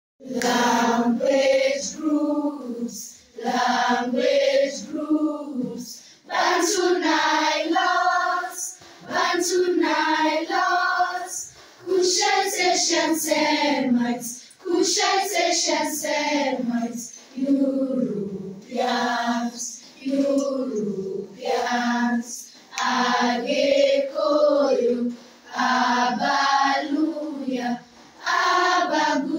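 A group of voices singing in short phrases of one to two seconds with brief breaks between them, with no instruments heard.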